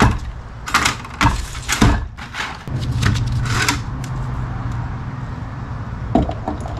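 Metal automatic-transmission parts knocking and clattering as they are handled on a workbench, with several sharp knocks in the first few seconds. A steady low hum sets in a little under three seconds in, and another knock comes near the end.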